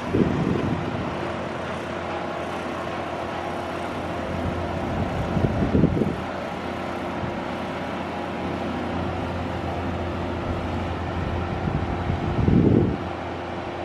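Steady hum of the homemade barrel boat's motor running at speed across the water, with gusts of wind buffeting the microphone about a second in, around six seconds in and near the end.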